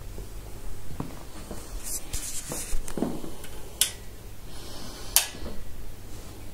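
Handling noise from a handheld camera being moved: rubbing and soft knocks with two sharp clicks, over a steady low hum.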